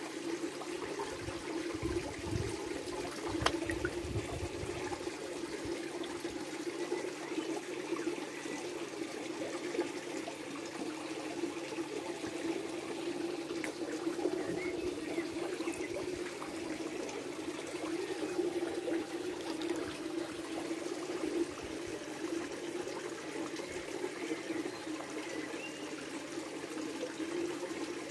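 Pond water trickling steadily, with light lapping and splashing around a hand held in the water.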